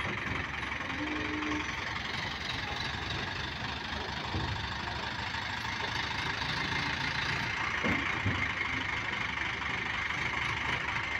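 Diesel engine of a hydraulic mobile crane running steadily with a knocking clatter.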